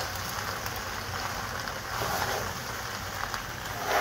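Penne and vegetables sizzling in a large pot as they are stirred with a metal spoon: a steady hiss with a few faint scrapes and clicks, and a brief louder scrape at the very end.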